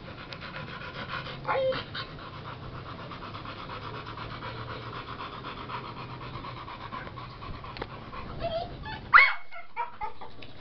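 Blue American Bully panting steadily with its mouth open, rapid breaths throughout. It gives two short whining cries, one about a second and a half in and a louder, sharper one near the end.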